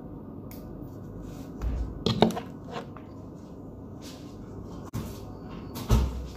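Objects being handled on a kitchen counter: a few sharp clicks and knocks, the loudest a cluster a little after two seconds and a dull thump near the end, over a steady low hum.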